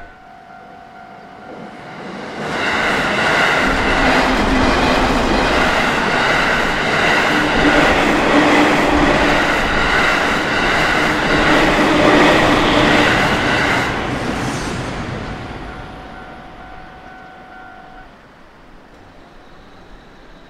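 Japanese level-crossing warning bell ringing while a JR Utsunomiya Line train passes over the crossing for about eleven seconds, its wheels clacking rhythmically over the rail joints. The bell rings on after the train has gone and stops near the end.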